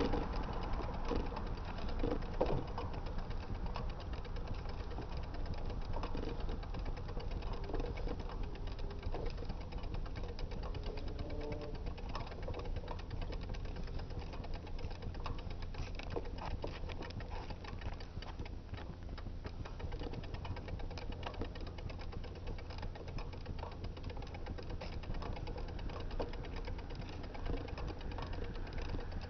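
Bicycle rolling along a road, heard from a handlebar-mounted camera: a steady low rumble with rapid clicking and rattling throughout.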